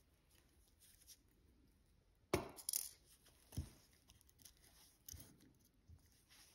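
Light clicks and taps of small watchmaker's tools handling parts on the bench. The loudest is a sharp knock about two seconds in, followed by a few quieter taps.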